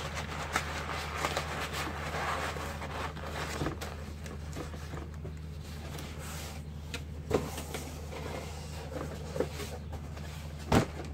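Cardboard and packing paper rustling and shifting as a windshield trim is set into a cardboard shipping box, with a few sharp knocks, one near the end, over a steady low hum.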